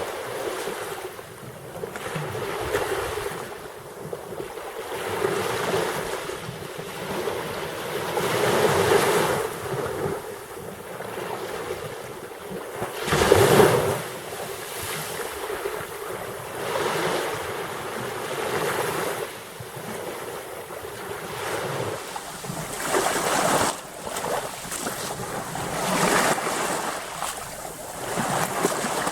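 Black Sea surf: waves washing in and breaking, swelling and ebbing every couple of seconds, with the biggest surge about halfway through.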